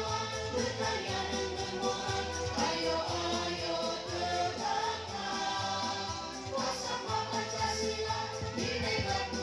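Music: a song with several voices singing together over a steady bass line.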